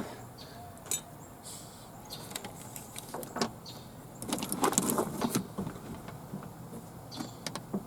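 Scattered metal clicks and knocks of a car window motor and regulator assembly being shifted about inside the door while its bolt holes are lined up, with a cluster of knocks about halfway through.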